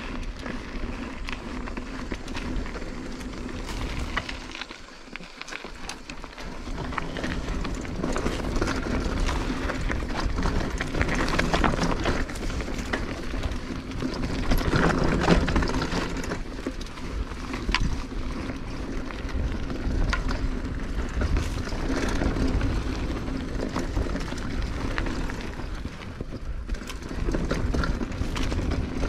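Mountain bike ridden fast over a rough dirt trail: tyres crunching over soil and stones, with constant rattles and knocks from the bike over bumps and a heavy low rumble of wind on the microphone. It eases briefly about five seconds in, then picks up again.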